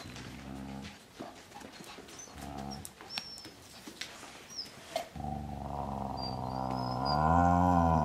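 Adult dog growling at a puppy as a warning correction: short low growls, then a long growl from about five seconds in that rises in pitch near the end as it bares its teeth.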